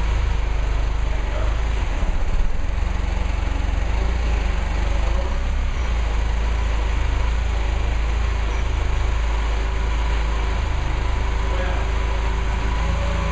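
Forklift engine running steadily with a low hum while it holds a loaded fermentation tank raised over the press hopper.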